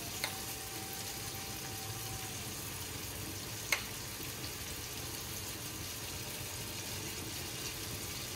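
Chicken, tomatoes and yogurt sizzling steadily in a karahi over a gas flame. Two short clicks break in, one just after the start and one near the middle.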